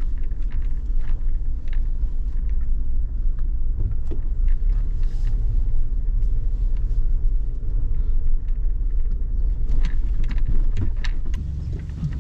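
Suzuki Jimny JB74 moving slowly as it is brought into a parking spot: a low rumble with scattered knocks and rattles, settling about eleven seconds in to a steadier engine hum.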